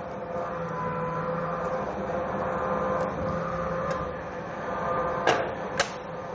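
Historic mint coin press (Coin Press No. 1) running with a steady mechanical hum, then two sharp knocks about half a second apart near the end as it strikes a one-ounce silver planchet into a medallion under 120 tons.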